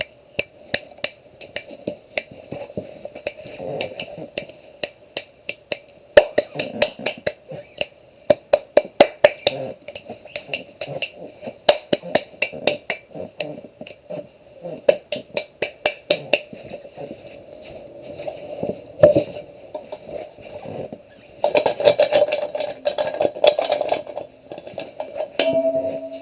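Rapid, irregular taps on a hard object that rings slightly, several strikes a second, thickening into a dense flurry about 21 seconds in. A steady tone begins near the end.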